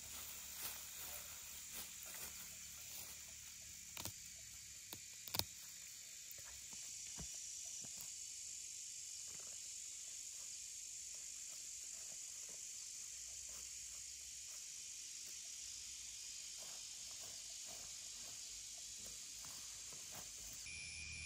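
Grass and weeds being pulled up by hand, heard as scattered rustles and snaps of stems, with one sharp snap about five seconds in, over a steady high hiss of insects.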